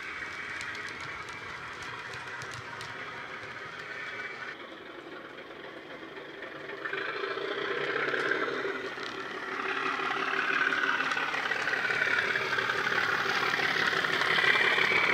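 A Bachmann Class 37 model locomotive's DCC sound decoder playing a Class 37 diesel engine sound through its speakers, a steady engine tone mixed with the model's running noise on the track. It fades in the middle and grows louder in the second half as the loco comes back toward the microphone.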